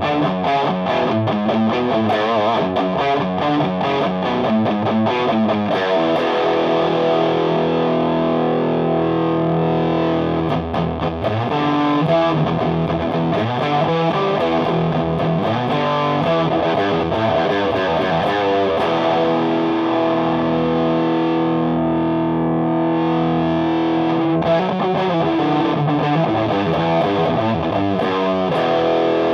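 Electric guitar (PRS S2 Custom 24) played through a Ramble FX Marvel Drive overdrive pedal into a Marshall JVM amp's clean channel, giving a distorted Marshall-style tone. Quick single-note runs for the first several seconds, then ringing held chords alternating with faster riffs.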